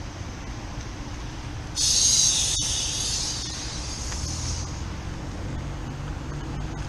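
A sharp hiss of refrigerant escaping from a gauge hose starts about two seconds in and fades away over about three seconds. A steady low machine hum runs under it.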